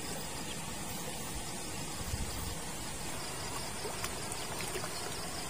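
Night insect chorus: crickets chirping steadily over a faint even hiss, with a few faint small ticks.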